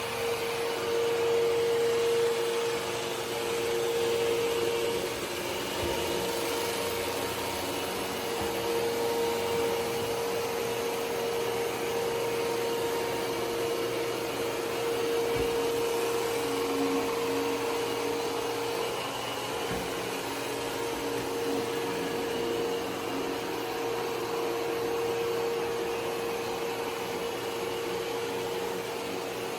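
ECOVACS Deebot X9 Pro Omni robot vacuum running steadily: a constant whine over the airy hiss of its suction, with a couple of faint knocks partway through.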